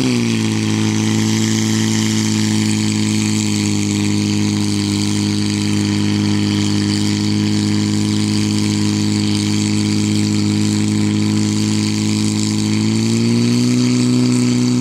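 Portable fire pump's engine running steadily under load while pumping water from a tank through suction hoses into the hose lines; about thirteen seconds in it speeds up slightly and holds the higher speed.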